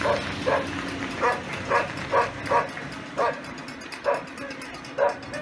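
A dog barking over and over: about ten barks at an uneven pace, roughly two a second.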